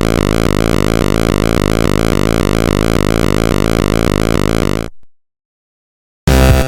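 Loud synthesizer music, a dense steady electronic drone, fades out about five seconds in. After about a second of silence, loud electronic dance music with a heavy beat cuts in near the end.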